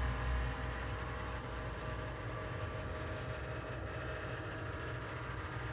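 A steady low hum with faint background noise, and no distinct event standing out.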